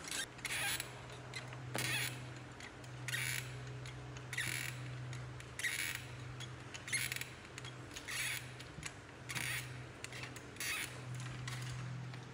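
Baby swing rocking: a low motor hum with a short swish or click about every second and a quarter.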